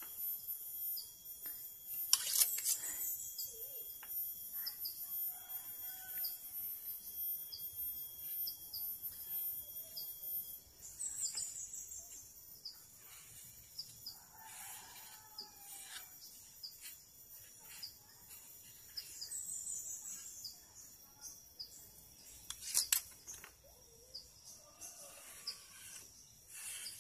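Birds chirping and insects calling, with a steady high tone that stops about ten seconds in. Faint scraping and handling as paint softened by remover and thinner is scraped off a plastic part, with two sharp clicks, a couple of seconds in and near the end.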